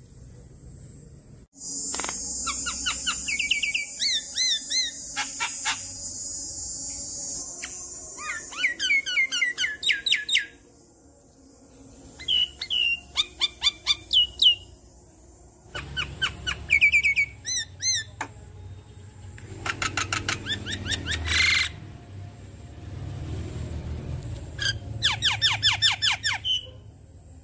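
Javan myna singing: bursts of fast clicking rattles, whistled notes and a harsh hissing chatter, in several phrases separated by short pauses.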